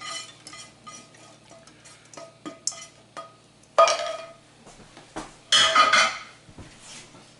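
Skillet and spatula scraping vegetables out into a stainless steel mixing bowl: light ticks and scrapes, a sharp clink against the bowl that leaves it ringing about four seconds in, and a louder clatter about five and a half seconds in.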